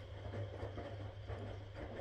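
A 1962 Constructa K4 front-loading washing machine tumbling a wet load in its stainless-steel tub: water sloshing and laundry dropping with soft splashes two or three times a second, over a steady low motor hum.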